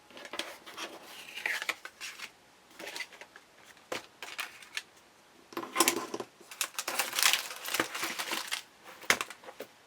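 Stationery and packaging being handled: paper and packaging rustling in bursts, with scattered light taps and clicks, busiest over the middle stretch.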